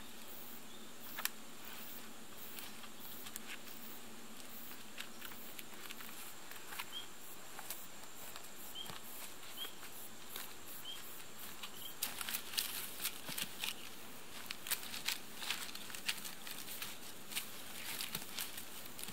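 Scattered light knocks, clicks and rustles of wooden stakes being stood against a log shelter frame, with footsteps in dry leaves and debris, busier in the second half. A few faint, short high chirps come near the middle.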